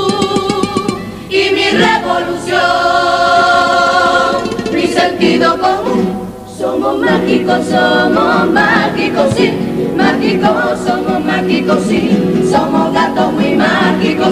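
Carnival comparsa choir of mixed women's and men's voices singing a popurrí in harmony, backed by drum and guitar. A long chord is held about three seconds in, and there is a short break about six seconds in.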